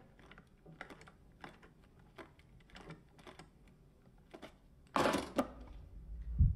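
A run of small clicks from a briefcase's brass combination-lock wheels turning under a thumb, then a louder double snap of the latches springing open about five seconds in.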